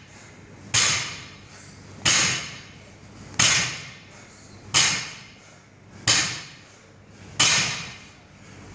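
Loaded barbell with rubber bumper plates striking the rubber gym floor in repeated touch-and-go deadlifts: a sharp thud about every 1.3 seconds, six in a row, each ringing out briefly.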